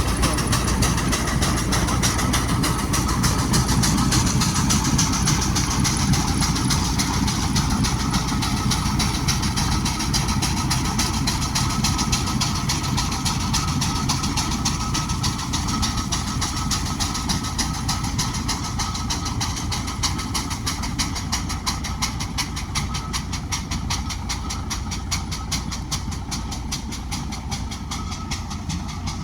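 Heavy haulage vehicle's engine running steadily with a fast, even rhythmic beat, growing slightly fainter toward the end.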